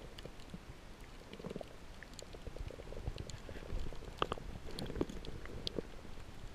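Muffled low rumble of water moving around an underwater camera's waterproof housing, with scattered sharp clicks and crackles, a few louder ones about four and five seconds in.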